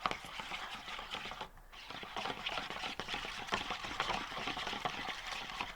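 Wet slime potion mixture with foam balls and sequins being stirred in a small plastic container: a dense crackle of many small clicks that pauses briefly about one and a half seconds in.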